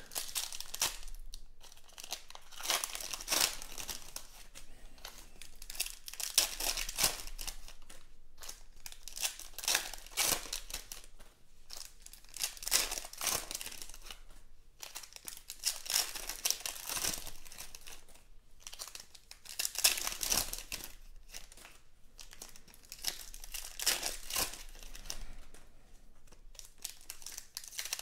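Foil trading-card packs being torn open and crinkled by hand, the wrappers rustling as the cards are pulled out, in repeated bursts a second or few apart.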